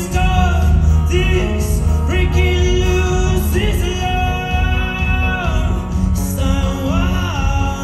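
Live band performance of a pop-rock ballad: a male lead singer holds long notes that slide between pitches, over acoustic-electric guitar and a heavy low bass.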